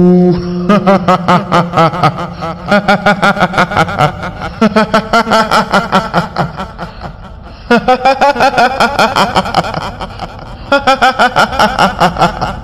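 A woman's rapid "hihihi" cackling laugh, voiced as a kuntilanak ghost, in four long runs of quick, even syllables with short breaks between.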